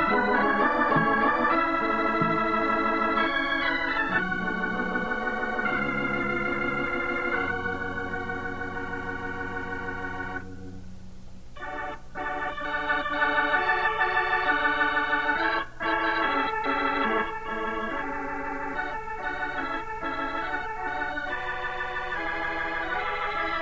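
Organ music: sustained chords under a moving melody, dipping briefly about halfway through before the full sound returns.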